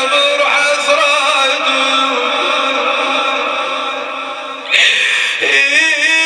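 A man chanting a mournful Arabic elegy (nai'i) in long, wavering drawn-out notes. Near the end the voice jumps suddenly to a louder, higher note and holds it steady.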